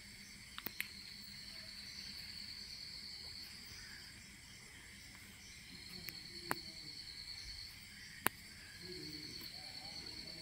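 Faint insect trilling: three long, steady, high-pitched trills, each lasting a few seconds, with a few sharp clicks in between.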